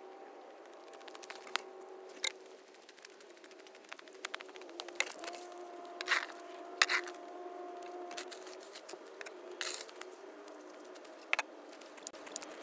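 Snow shovel with a blue plastic blade scraping and pushing snow across an asphalt driveway: a run of short scrapes and crunches, loudest twice about six and seven seconds in, over a steady faint hum.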